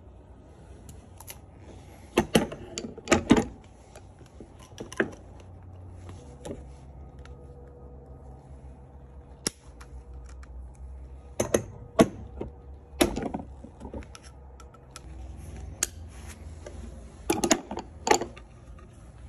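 Pliers and a metal battery terminal clamp being handled: sharp metallic clicks and clanks in irregular clusters, loudest about two to three seconds in, again around eleven to thirteen seconds, and near the end.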